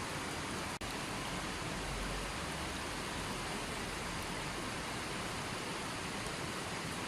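Running water flowing in a steady, even rush, with a split-second break in the sound just under a second in.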